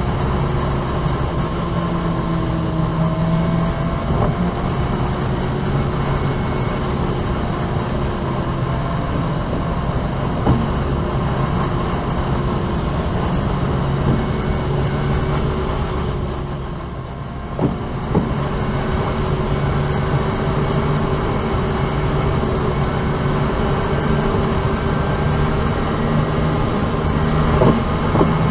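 Car driving on a freeway, played back at four times speed: steady road and engine noise with slowly gliding engine tones. It dips briefly about two-thirds of the way through, with a couple of short knocks.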